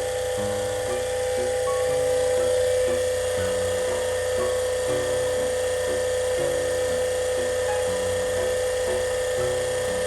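Steady, high-pitched electric motor whine from air-conditioner cleaning equipment, a pump running without a break, with a stepping background melody under it.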